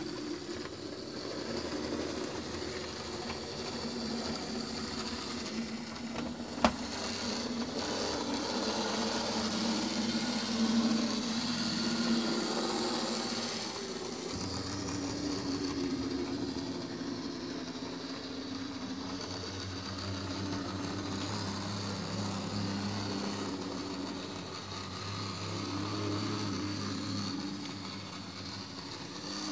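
Model Class 47 diesel locomotive running at slow speed: the steady whirr and hum of its electric motor and wheels on the track, running smoothly. One sharp click about a quarter of the way in.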